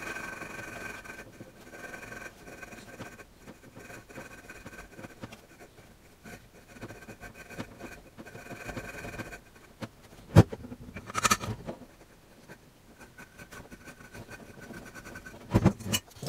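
Engine valve being lapped into its seat by hand with grinding compound: a faint gritty scraping as it is turned back and forth, with two sharp knocks about ten seconds in.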